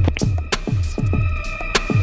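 Background electronic music with a fast, heavy kick-drum beat, about three to four beats a second, with crisp percussion clicks and a few held synth tones over it.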